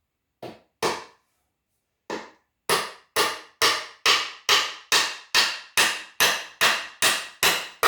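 Hammer driving a nail into a wooden platform frame board: two light starting taps, then after a short pause a steady run of about a dozen hard blows, roughly two a second.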